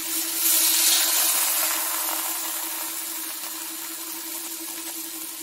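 Sirloin steaks sizzling in a hot nonstick frying pan; the sizzle swells sharply about half a second in as a steak is gripped and lifted with tongs, then slowly dies down. A steady low hum runs underneath.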